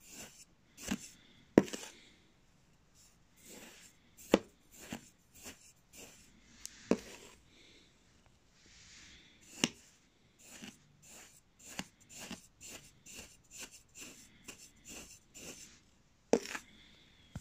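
A kitchen knife slicing through kinetic sand, with repeated soft crunching and crumbling as the blade cuts the packed sand. There are about five sharp clicks where the blade knocks the hard surface underneath; the loudest comes near the start.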